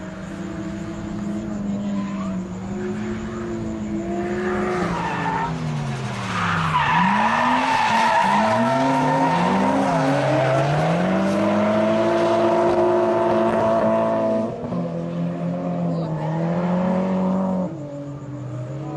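Drift cars sliding through a corner in tandem: their engines rev high, drop and climb again as the drivers lift and get back on the throttle. The rear tyres squeal as they spin and smoke, loudest in the middle of the slide.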